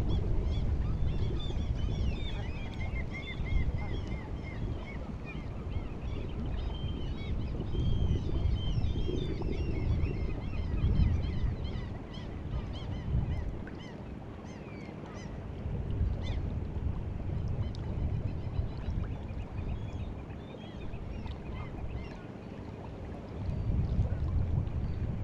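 A flock of birds calling over the sea, a dense chatter of many short high calls that thins out after the middle. Underneath runs a low, surging rumble of wind and water at the shore.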